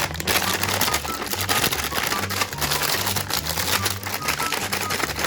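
Crinkling and rustling of plastic toy packaging being opened, a dense crackle, over background music with a repeating bass line.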